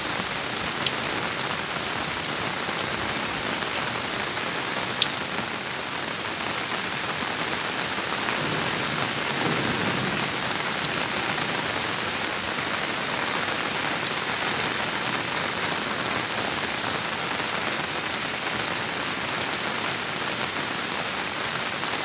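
Steady rain falling on an asbestos-cement sheet roof: a dense, even patter, with now and then a louder single drop ticking sharply on the sheeting.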